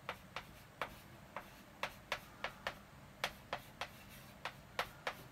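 Chalk writing on a blackboard: a run of sharp, irregular taps as the chalk strikes the board, roughly three a second.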